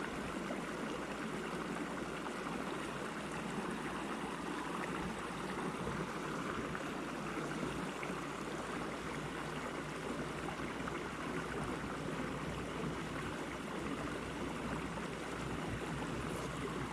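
Steady rushing of a small mountain trout creek's flowing water.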